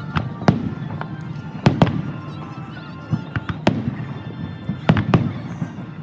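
Aerial fireworks shells bursting: about seven sharp booms at irregular intervals, some in quick pairs, over background music.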